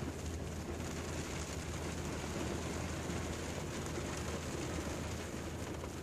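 Rain falling on a car's roof and windscreen, heard from inside the cabin, over a steady low rumble from the car itself.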